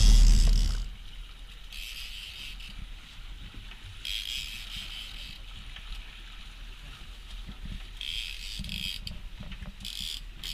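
Wind and water noise aboard an open boat on the water: a loud rush that dies away within the first second, then a low steady rumble with brief hissing gusts every couple of seconds.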